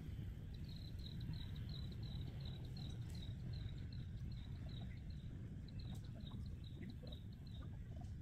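A small animal chirping in a rapid, even run of short high chirps, about four a second, with a brief pause about five seconds in. A steady low rumble runs underneath.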